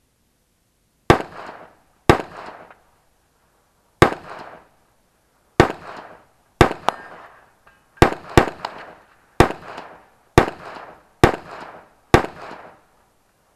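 Rifle shots fired in a practical shooting stage: about a dozen sharp reports, roughly a second apart with a few quick pairs, each followed by a short echoing tail.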